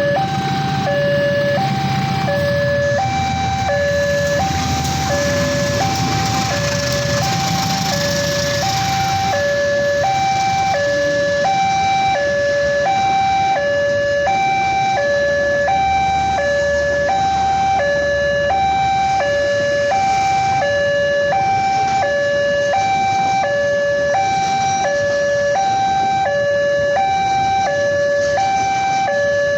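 Railroad level-crossing warning alarm sounding continuously, an electronic two-tone signal alternating steadily between a lower and a higher note, warning that a train is approaching. A low rumble runs under it for about the first ten seconds.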